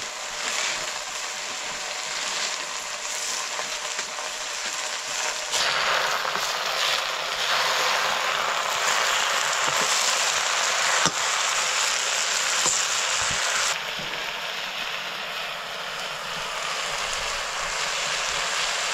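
Food sizzling as it fries in hot oil in a cooking pan, a steady crackling hiss that grows louder about five seconds in and eases back about fourteen seconds in.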